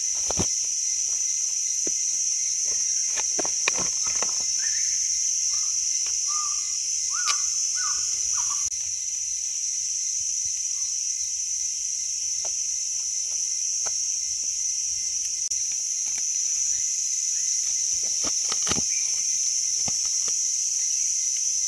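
A steady high-pitched insect drone, with a few short bird chirps about six to eight seconds in and scattered faint clicks and crackles.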